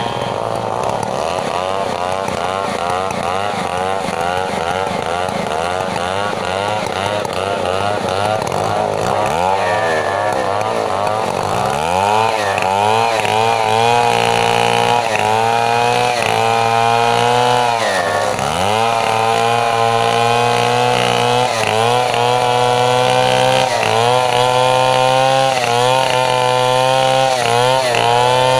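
Stihl MS 070 two-stroke chainsaw running at high revs while ripping lengthwise through a mahogany log. Its engine pitch wavers and dips sharply several times as the chain bites into the wood, then climbs back each time.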